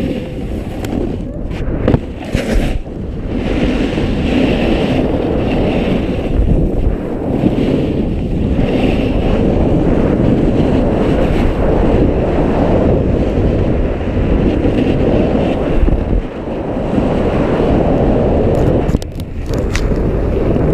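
Wind rushing over the microphone together with a snowboard sliding and scraping over packed snow. The sound is loud and continuous, with brief lulls a few times.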